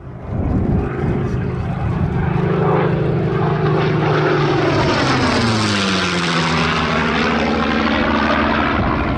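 Supermarine Spitfire's piston engine flying past close by, steady at first, then dropping in pitch about five to seven seconds in as the aircraft passes.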